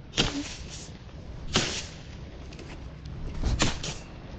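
Three sharp knocks or cracks, about a second and a half apart, over a low steady hum.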